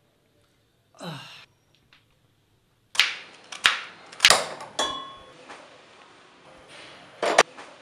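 Kitchen knife chopping red onion on a cutting board: four sharp chops about two-thirds of a second apart, one with a short metallic ring, then two more quick knocks near the end.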